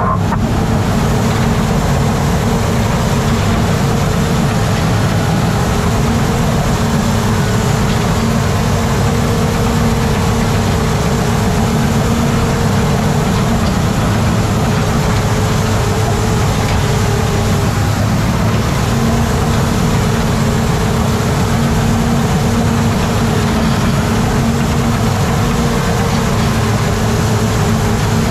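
Fire bulldozer's diesel engine running steadily, heard from inside the operator's cab, with a constant low hum and unchanging pitch.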